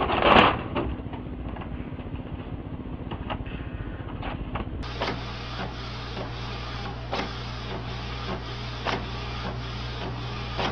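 A loud rustle of paper as a cat yanks a sheet from a printer's tray. After that comes an inkjet printer printing, from about five seconds in: a steady hum with a regular knock every half-second to second.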